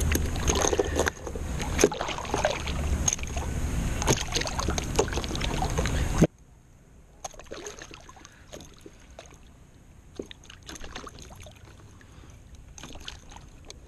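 Wind rumbling on the camera microphone over scattered clicks and small splashes from handling the line and fish beside a kayak. The wind noise cuts off suddenly about six seconds in, leaving faint splashes and knocks.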